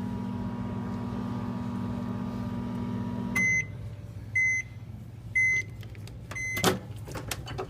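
Microwave oven running with a steady hum that stops about three and a half seconds in. Four short high beeps follow, about a second apart, signalling the end of the heating cycle, then a sharp click shortly after the last beep.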